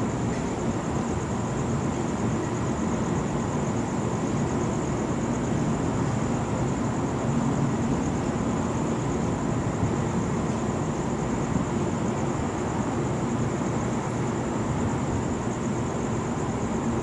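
Steady low rumble of distant city traffic and machinery hum, with a faint steady high-pitched tone above it and no distinct events.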